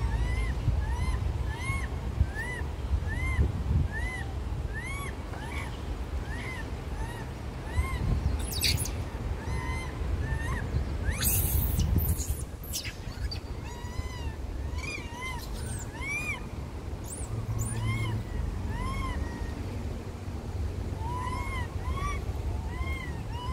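Monkeys crying over and over: short, high, rising-and-falling cries, about two a second, from more than one animal, with a louder, harsher scream about eleven seconds in. The uploader hears these cries as hungry monkeys begging for food. A low wind rumble runs under the calls.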